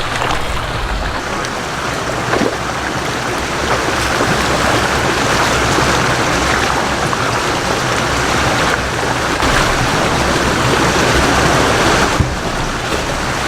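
Rushing water from a waterfall and its stream: a steady hiss, a little stronger through the middle.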